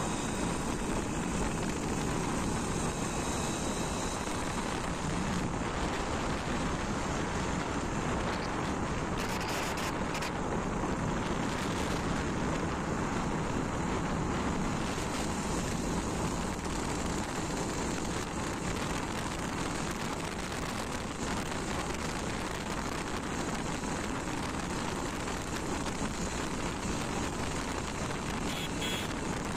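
Steady wind rushing over the microphone on a moving motorcycle, with the motorcycle's engine and road noise under it. A few brief rustles come about a third of the way in and near the end.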